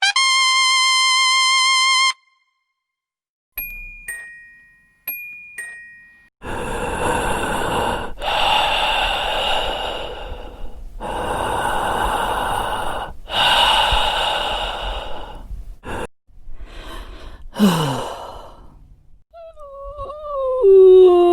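A string of separate sound effects: a steady electronic beep for about two seconds, two short two-note ding-dong chimes, then several long, loud breathy sighs, and near the end a wavering, sliding whine.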